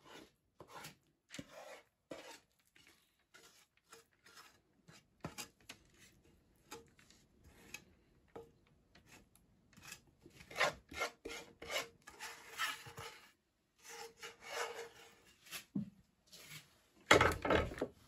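Wooden spatula scraping sticky, freshly cooked peanut brittle out of a pan, in short irregular strokes, with a louder scrape near the end.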